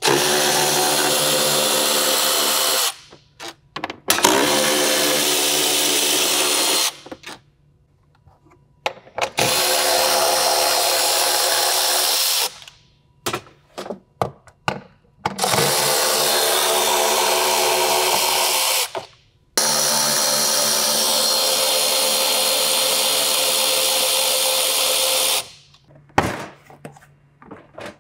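Cordless electric ratchet running in five spells of about three to six seconds each, backing out 10 mm bolts, with clicks and handling noise in the short gaps between.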